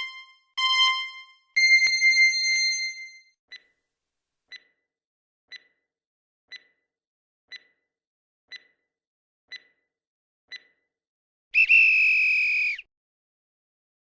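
Quiz countdown timer sound effect: two short beeps and a longer, higher beep, then eight short ticks one a second, ending about 12 seconds in with a harsh buzzer about a second long that marks time up.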